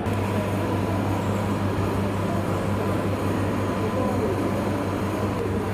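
Mains-powered transformer coils of a science-museum transformer exhibit humming steadily at a low pitch, starting as the switch is pressed and held.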